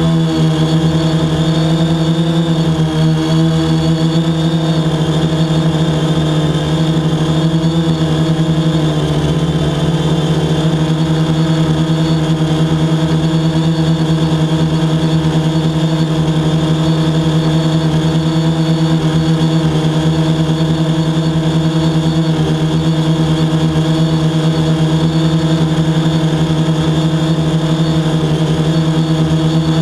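Drone's motors and propellers humming steadily while it hovers, one strong low drone with a stack of higher whining overtones. The pitch wavers a little in roughly the first ten seconds, then holds steady.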